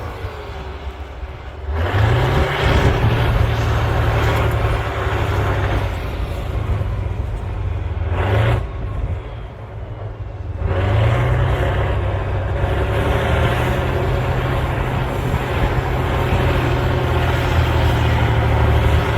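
Cat D9L bulldozer's V12 diesel engine working hard while pushing dirt. It eases off twice, about two seconds in and again near the middle, and each time revs back up to full power.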